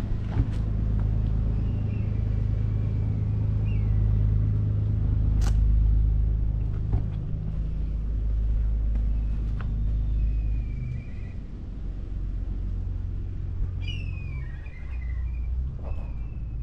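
Steady low engine hum that drops in level about eleven seconds in, with a few bird chirps and light clicks over it.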